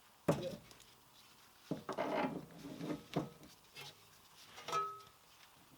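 Several sharp metal knocks and clunks, three of them about a second and a half apart, with a brief ring near the end, as a driveshaft is worked through a rear wheel hub.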